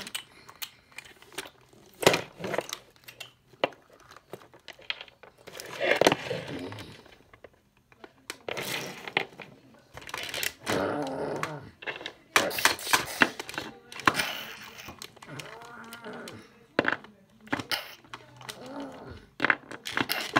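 Toy dinosaur figures knocking and clattering on a hard floor, with a string of sharp knocks, mixed with a voice making growling dinosaur noises.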